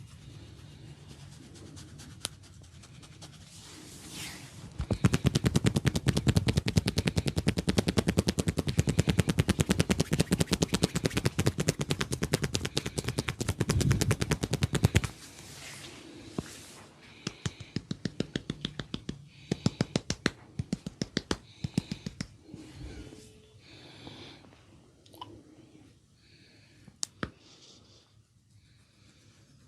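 Head massage by hand: after some quiet rubbing, a fast run of sharp hand taps on the head, about ten a second, lasts some ten seconds. Slower, scattered taps and cracks follow.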